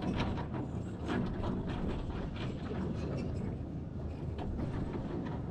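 Heavy diesel earthmoving machinery running, with a steady low rumble and irregular metallic clanks and knocks, more frequent in the first few seconds.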